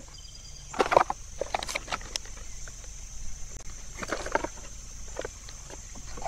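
Plastic lure packaging crinkling and tackle rattling in a tackle box as someone rummages for hooks. The handling noises come in short, scattered bursts, the loudest about a second in and again around four seconds.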